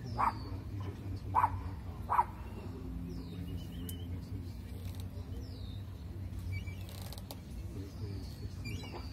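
Gulls calling: three short, loud calls in the first two and a half seconds, then a few faint, high, falling chirps. A steady low hum runs underneath.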